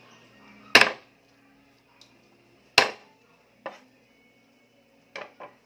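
Large kitchen knife striking down on a chopping board: two loud chops about two seconds apart, then a few lighter knocks near the end.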